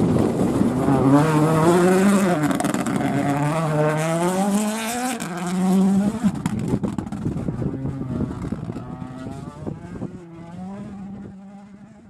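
Ford Puma Rally1 car's turbocharged 1.6-litre four-cylinder engine accelerating hard on gravel, the note climbing and dropping back at each upshift. It grows fainter in the second half as the car drives away.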